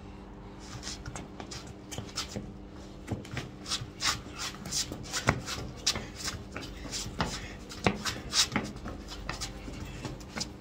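Trainers scuffing, shuffling and tapping on hard ground close to the microphone in irregular quick footwork steps, over a faint steady hum.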